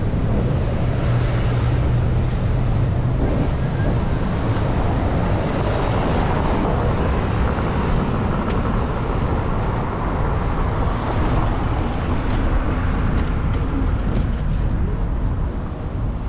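Steady city traffic noise, a dense rumble of road vehicles, with a low hum through the first three seconds or so.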